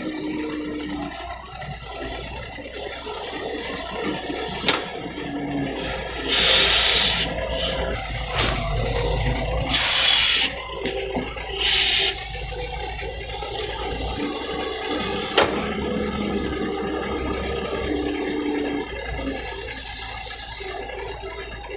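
Doosan DX140W wheeled excavator working: its diesel engine runs steadily, rising and falling with hydraulic load as it digs soil and swings to load a dump truck. Three short, loud rushing noises stand out about six and a half, ten and twelve seconds in, and there are two sharp clanks.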